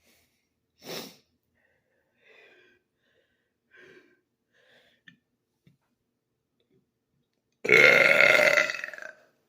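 A man's long, loud burp near the end, lasting about a second and a half, after a few faint short sounds.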